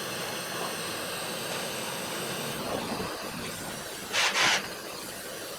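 Heat gun blowing steadily, shrinking heat-shrink tubing over a freshly soldered wire splice, with a brief louder rush of air about four seconds in.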